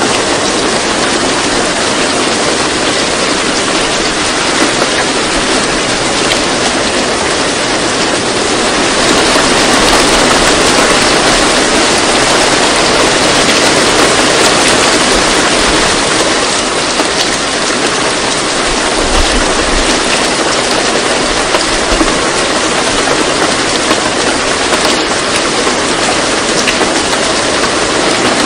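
Steady, loud rain-like hiss with no distinct drops or events, swelling slightly in the middle: the masking sound track of a subliminal audio.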